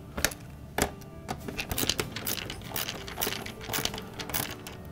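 Hand nut driver tightening screws into the metal mounting bracket of a dishwasher detergent dispenser: a string of short, irregular clicks and ticks as the tool seats on and turns the screws. Faint background music underneath.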